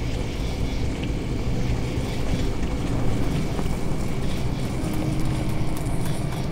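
Compact Chevrolet pickup truck driving on a dirt road: a steady low rumble of engine and tyres.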